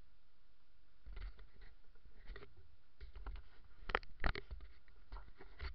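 Close rustling, scraping and clicking from an action camera being handled and moved. It starts about a second in, with two sharp clicks about four seconds in.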